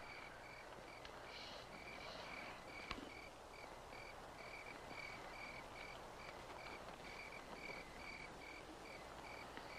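Cricket chirping faintly and steadily, about three chirps a second.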